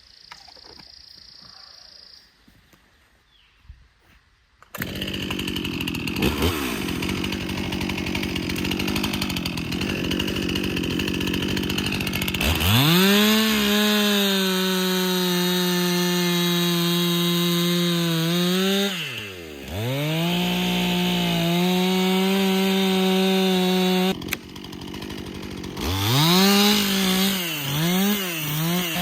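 Stihl MS 261 two-stroke chainsaw starting about five seconds in and running at idle, then revved to full throttle and held there as it cuts, dropping off and revving up again twice more, with quick throttle blips near the end.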